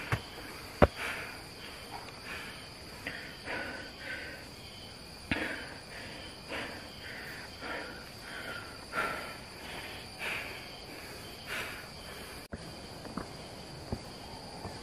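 Footsteps of a hiker climbing a forest trail, roughly one step a second, over a steady high-pitched insect drone. One sharp click about a second in.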